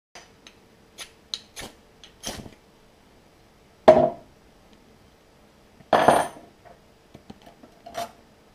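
Metal parts of a small tin emergency stove being handled on a bench: a few light clicks and scrapes, then two louder knocks about 4 and 6 seconds in and a smaller one near the end, as the pot stand and windscreen are set down and the stand is put on the burning fuel tin.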